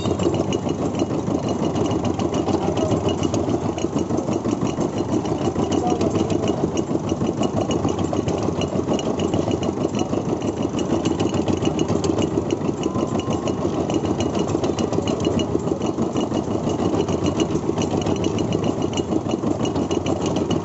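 Engine of a sugarcane juice machine running steadily with a fast, even beat while stalks are crushed between its steel rollers.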